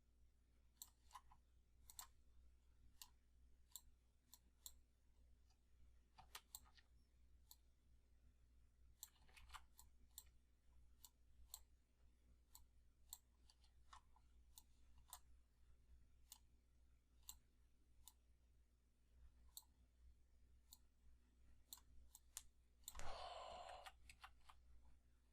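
Faint, irregular computer mouse clicks over near silence, at most a few a second, as vertices are selected and dragged. Near the end comes a brief soft noise about a second long.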